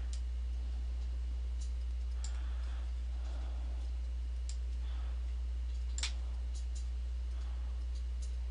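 Computer mouse clicking: a dozen or so separate sharp clicks at irregular intervals, the loudest about six seconds in, over a steady low hum.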